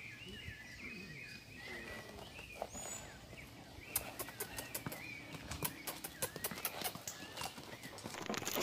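Birds chirping faintly, then from about four seconds in a run of light clicks and knocks from hooves stepping on stony ground as a ridden animal walks off.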